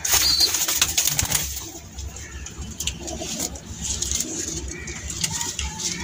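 Pigeons cooing, with a run of sharp clicks and knocks in the first second or so.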